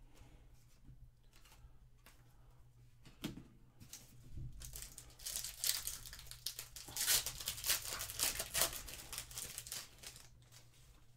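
The foil wrapper of a 2023 Panini Legacy football card pack being torn open and crinkled by hand. A dense crackling rip starts about halfway through and lasts about five seconds.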